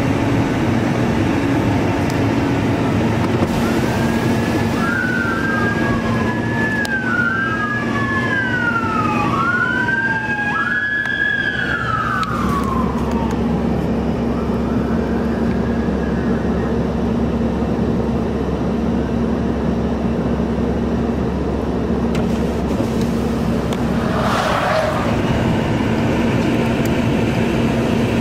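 An emergency vehicle siren wails, sweeping up and down about every two seconds for several seconds, over a steady traffic rumble. It then fades out, leaving the road noise, with one short burst of sound near the end.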